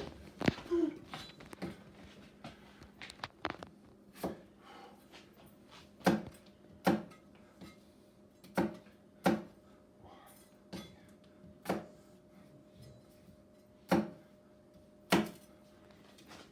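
Kitchen knife chopping potatoes into pieces on a cutting board: a dozen or so sharp knocks at uneven intervals.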